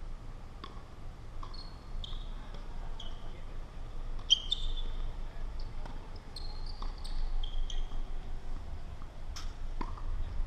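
Tennis play on a court: sneakers squeaking in short chirps as players move, with several sharp ball strikes and bounces.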